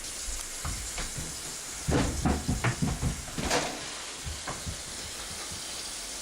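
Steady hiss, with a quick run of soft knocks and thuds about two to three and a half seconds in.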